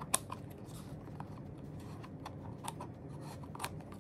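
Scissors cutting open a small cardboard box along its taped edge, with light scattered clicks and snips as the blades and box are handled; the sharpest click comes just after the start.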